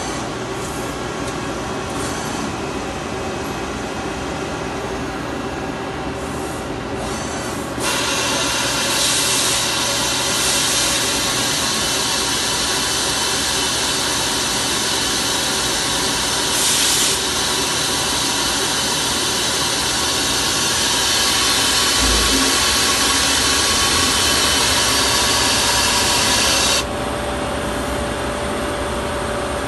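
2007 Okuma ES-L8 II CNC lathe running, its spindle and drives humming with several steady tones. About eight seconds in, a loud rasping hiss of the tool cutting the spinning part begins, and it stops a few seconds before the end.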